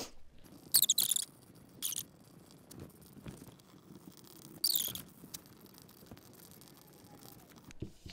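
Pencil point scratching on paper in a few short tracing strokes, about one, two and five seconds in.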